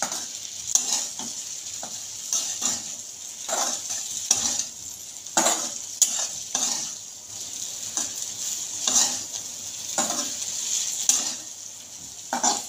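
Flat steel spatula scraping and knocking against a kadhai, irregularly about once a second, as okra is stir-fried in hot oil. A steady sizzle runs underneath.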